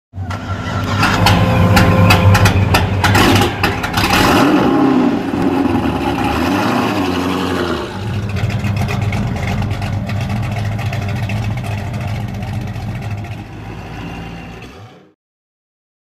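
A car engine starting and revving, then settling into a steady idle that fades out near the end.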